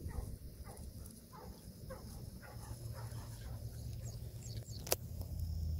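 Golden retriever breathing hard in a steady rhythm, about two breaths a second, as it trots back from a water retrieve, over low wind rumble on the microphone. A single sharp click comes about five seconds in.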